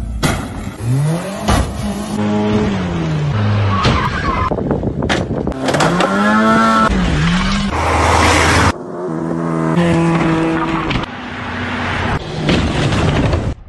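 Car engines revving hard, their pitch rising and falling again and again, in several short clips cut abruptly one after another.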